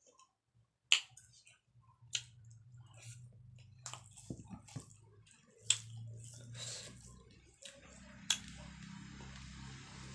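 Close-up sounds of fingers mixing rice with mustard greens on a plate: soft wet squishing and crackling, with three sharp clicks spread through. A low hum runs underneath.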